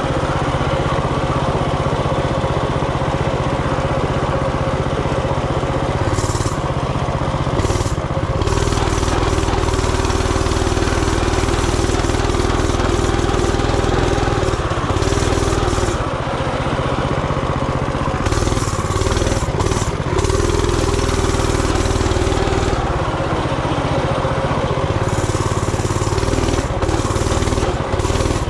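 Coleman RT200 minibike's 200cc single-cylinder four-stroke engine running under way, its engine speed shifting now and then as the throttle changes.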